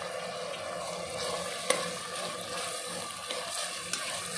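Chopped onions and tomatoes sizzling in oil in a pressure cooker while being stirred, with a few sharp knocks of the spoon against the pot, the loudest about one and a half seconds in.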